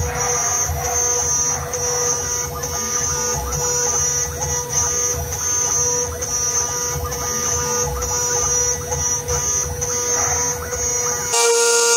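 A homemade CNC mill cuts metal with a 4 mm end mill. Its spindle makes a steady whine over a rough cutting rumble, with a high hiss that pulses on and off regularly. Near the end the sound changes abruptly and the low rumble drops out.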